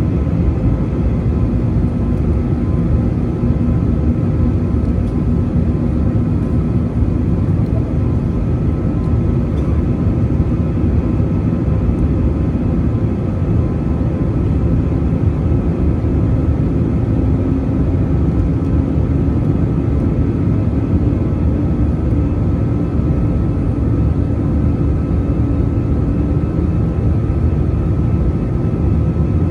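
Airbus A320-200 jet engine and airflow noise heard from inside the cabin: a steady loud rumble with a constant hum, and one tone creeping slightly higher in pitch about halfway through.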